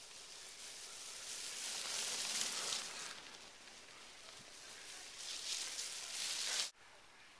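Cyclo-cross bike tyres running through dry fallen leaves on a dirt track, a rustling hiss that swells as two riders pass about two and a half seconds in. It swells again as a third rider passes near the end, then cuts off suddenly.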